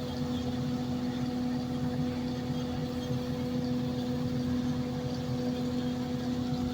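Loud, steady drone of construction machinery that seems to be suctioning through a manhole, likely a vacuum truck. It holds one constant pitched hum over a low rumble, with no change.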